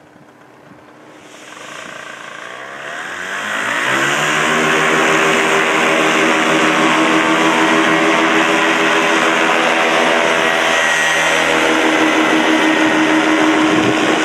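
A Miniplane paramotor's two-stroke engine and propeller throttle up over the first few seconds, rising in pitch. The engine then runs steadily at high power through the foot-launch takeoff run and lift-off.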